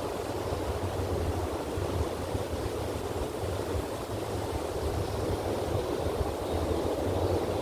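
Ocean surf washing steadily onto the beach, with a low wind rumble on the microphone.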